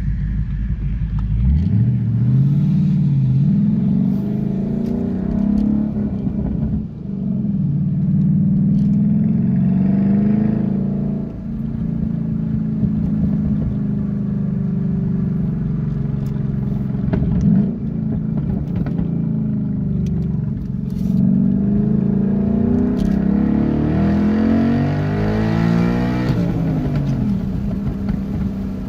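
2012 Ford Mustang Boss 302's 5.0-litre V8 through open, resonator-deleted side pipes and SLP Loudmouth axle-backs, driven under load. The revs climb and fall repeatedly, with brief dips in level a few times along the way and a strong climb and drop near the end.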